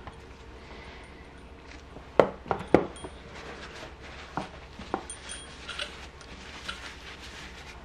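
A few sharp metal clinks and knocks, loudest about two to three seconds in, as the inner tube of a motorcycle front fork is handled on the bench. After that comes the soft rustle of a paper towel wiping the tube.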